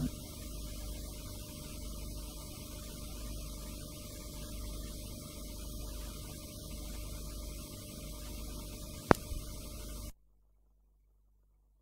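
Steady low electrical hum with faint hiss, with one sharp click about nine seconds in; the sound cuts off to dead silence a second later.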